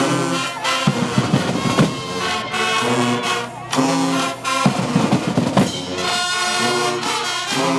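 Marching band playing: brass holding long chords, broken up about a second in and again about five seconds in by runs of snare and bass drum strokes.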